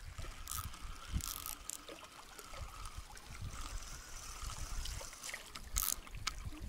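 Water trickling and splashing at the bank, with a low rumble of wind on the microphone and a faint steady whine. A few short splashes stand out, the clearest one near the end.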